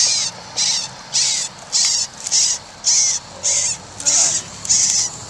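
Black-billed magpie nestlings giving harsh, rasping begging calls, a loud hiss repeated in an even rhythm of nearly two calls a second.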